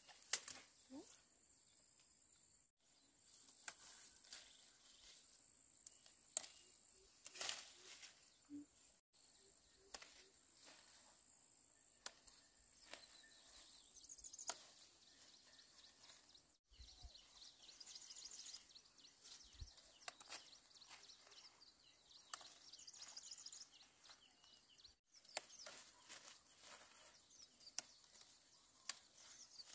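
Faint outdoor ambience: scattered rustles and sharp clicks, a steady high insect drone, and a few brief high chirps from birds or insects.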